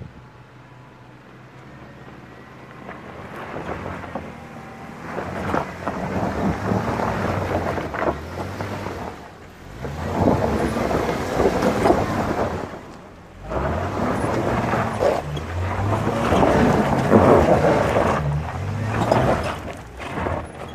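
An off-road truck's engine revving up and down as it works over a rough trail, easing off twice along the way. Heavy wind noise on the microphone sits over it.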